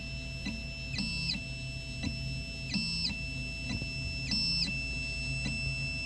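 Xhorse Dolphin key machine's stepper motors whining as its probe traces the cuts of a Ford HU101 high-security key to decode it: steady tones that jump in pitch every half second or so as the carriage moves.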